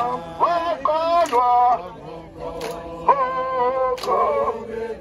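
A man singing through a handheld megaphone, leading a song in long held notes that slide between pitches.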